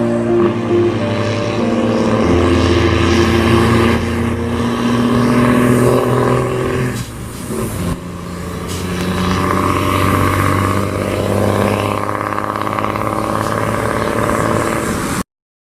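Vehicle engine running through a straight-through exhaust with no muffler, held at steady revs that shift in steps. It drops away briefly about seven seconds in, builds again, then cuts off suddenly near the end.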